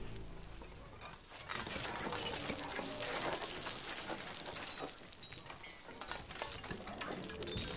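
Live electronics of a contemporary piece for mezzo-soprano and electronics, without the voice: a dense scatter of small clicks and short, high tinkling tones. It thins out in the first second, then fills back in and carries on.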